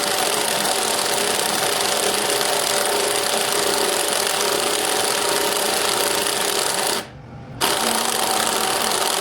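A power tool running steadily, stopping about seven seconds in and starting again half a second later.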